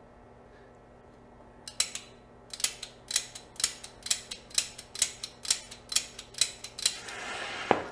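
Flint spark igniter struck repeatedly at the mouth of a CadWeld exothermic welding mould: about a dozen sharp clicks, roughly two a second. Near the end a short fizzing hiss follows as the weld powder catches and burns.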